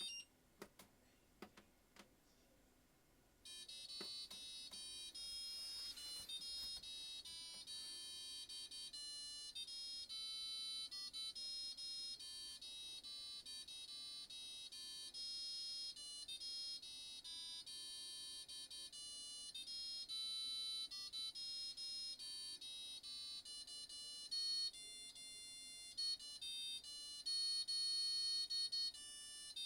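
Fisher & Paykel washing machine's electronic beeper playing a national anthem as a melody of single-pitch beeps. After a short pause with a few faint clicks, the tune starts about three and a half seconds in and runs on note by note.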